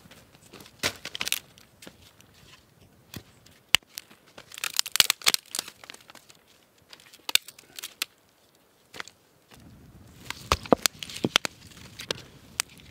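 Dry split wood and bark being handled and laid onto a small campfire: scattered snaps, cracks and rustles, with a busier spell about five seconds in and another near the end.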